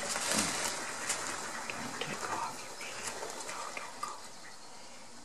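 A flock of mallards splashing and paddling on the water of a pool, with a few soft, short quacks among them.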